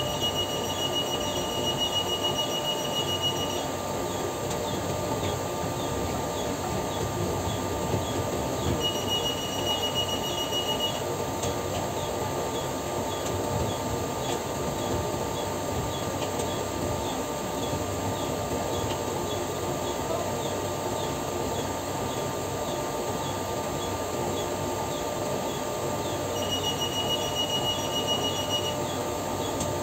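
Steady machinery drone with constant hum tones and a faint high ticking about twice a second. A high pulsing beep comes in three times, each lasting two to three seconds.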